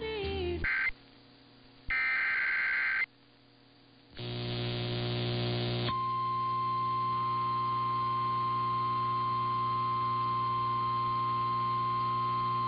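Emergency Alert System header: three short, harsh, screeching bursts of digital data tones with gaps between them, followed about six seconds in by a long, steady single-pitch alert tone, the NOAA Weather Radio warning alarm, with a low hum underneath.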